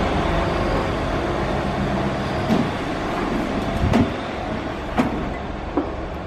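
Steady bus engine and road rumble that fades over a few seconds, with several separate sharp knocks about two and a half, four and five seconds in.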